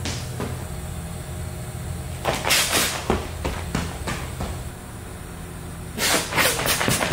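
Running shoes striking a rubber indoor track in short bursts of a few hard acceleration steps, once about two and a half seconds in and again about six seconds in, over a steady low hum.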